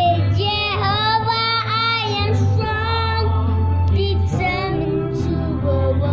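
A child singing along with a recorded song. The sung melody wavers and slides over a steady bass backing track.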